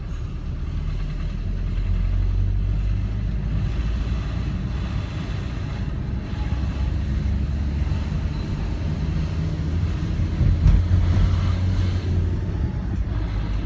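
Taxi driving, heard from inside the cabin: a steady low engine and road rumble, swelling briefly about ten seconds in.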